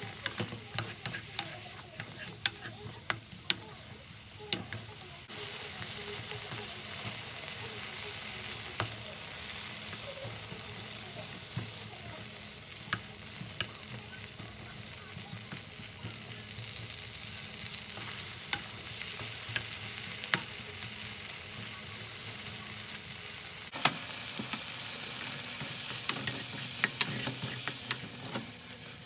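Food frying and sizzling in a pan, with scattered sharp clicks and taps of a utensil stirring it. The sizzle grows louder about five seconds in and again near the end.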